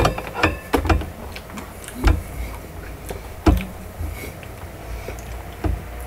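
Scattered knocks, clicks and rustles from a person's body movements while dancing close to the microphone, with a sharp knock right at the start and a few more over the next several seconds.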